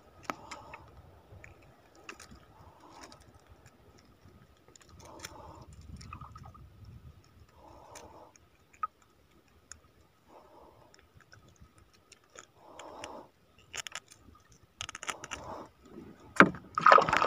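Scattered light clicks and small metallic rattles from a freshly caught fish and its lure's hooks being handled while it is unhooked in a small boat. The handling gets louder in the last couple of seconds.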